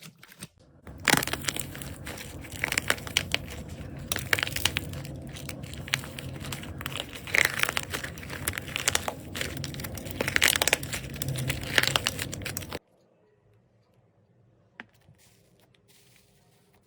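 Slime being squeezed and pressed by hand, making a dense, uneven crackling and crinkling noise. The noise cuts off suddenly about three quarters of the way through.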